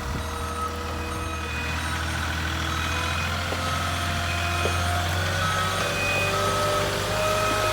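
Delivery truck backing up, its reversing alarm beeping about once a second over the steady drone of its idling engine.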